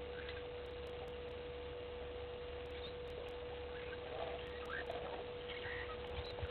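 Outdoor ambience of steady hiss under a constant high-pitched hum on one unchanging pitch. A few faint, short chirps come in about four seconds in.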